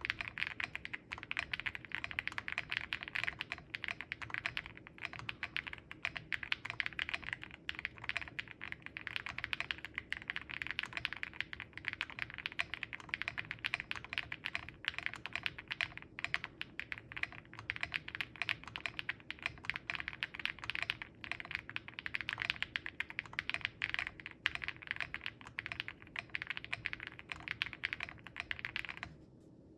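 Fast, continuous typing on a Zoom65 V3 custom mechanical keyboard with lubed and filmed KTT Hyacinth linear switches, a POM plate and PBT Cherry-profile keycaps. The typing stops suddenly near the end.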